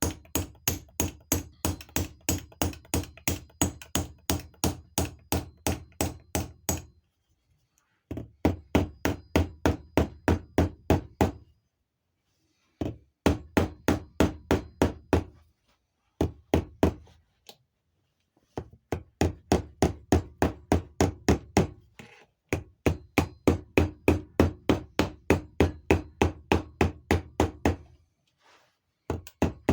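A small hammer tapping on the metal rim of a vacuum advance canister, closing it over the new diaphragm. The taps come in quick, even runs of about four a second, with brief pauses between runs.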